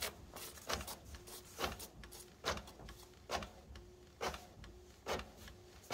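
Canon MAXIFY inkjet printer printing a page after a printhead cleaning. The printhead carriage shuttles back and forth in a regular rhythm, giving a click a little under once a second with a short whir between the clicks.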